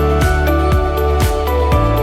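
Background music: steady pitched notes over a regular beat of about two strokes a second.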